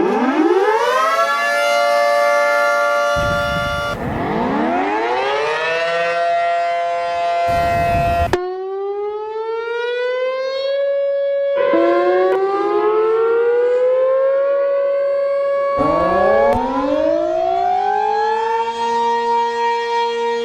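Civil-defence-type outdoor warning sirens in a series of short clips: each one winds up, its stacked tones gliding up in pitch from low and then levelling off into a steady chord. The recording cuts to a different siren about every four seconds.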